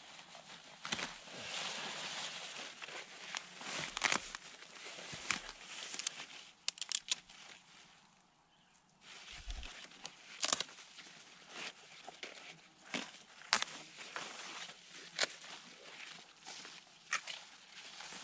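Tall grass rustling and swishing as a person moves and works through it, handling and pulling plant stems, with many sharp snaps and clicks. There is a short lull a little past the middle.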